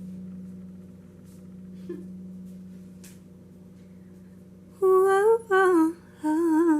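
A low harp string rings on and slowly fades during tuning. In the last two seconds come three short, loud, wavering hums.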